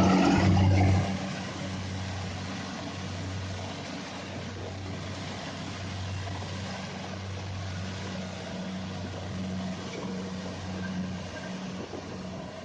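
An engine running steadily with a low hum, louder for about the first second and then even.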